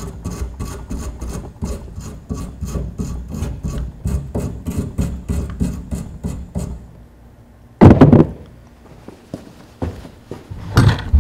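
A hand tool is scraped back and forth over an aluminium coil's surface in even rasping strokes, about four a second, scoring off oxides before brazing. The strokes stop about seven seconds in. Loud knocks follow about eight seconds in and again near the end.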